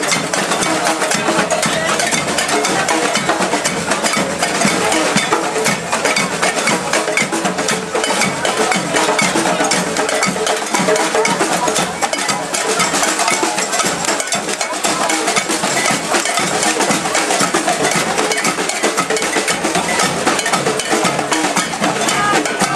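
Marching demonstrators' hand percussion: rapid, continuous clanking like cowbells and wood blocks, with drumming, over the mixed voices of a crowd.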